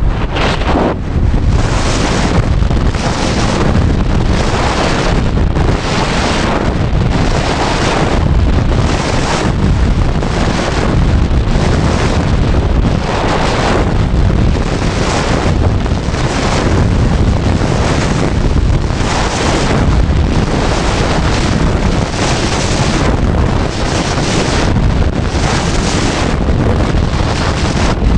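Strong mountain wind blasting straight onto the microphone as a loud, steady low rumble, with a brighter swish that recurs about once a second.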